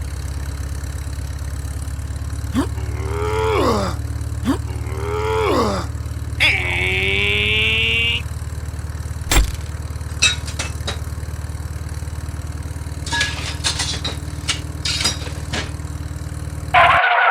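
Steady low engine drone of a mini truck running, with a few sliding, falling calls over it around the middle, a short high buzzing tone, and scattered clicks later on; music starts right at the end.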